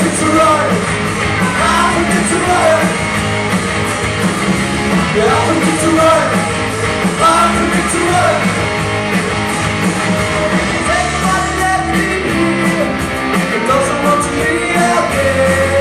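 Live rock band playing a cover song: a voice singing over electric guitars, bass and drums, loud and steady throughout.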